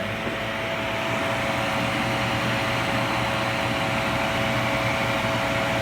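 Vintage Philco Noiseless 6,800 BTU window air conditioner (model 7AC53) running at its back, condenser side: a steady rush of fan air over a constant hum.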